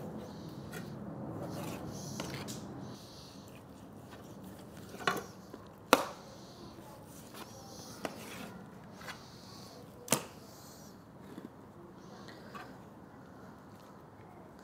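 A few sharp knocks and clinks of kitchen utensils, loudest about six seconds in, with fainter handling taps in between.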